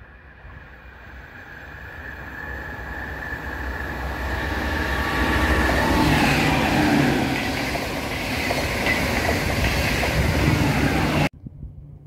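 NS passenger train approaching and passing close by on the platform track. A thin high ringing from the rails comes first, then a steadily growing rush of wheels and air that peaks as the carriages go past. The sound cuts off suddenly near the end.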